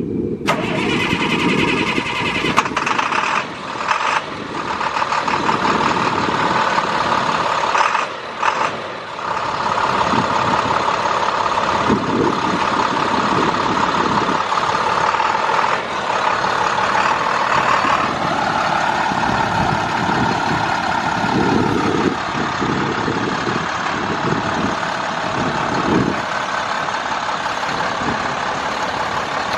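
International DT466 inline-six turbo diesel of a 2005 International 7400 water truck, starting about half a second in and then running steadily. Its sound changes about eighteen seconds in as the truck is driven.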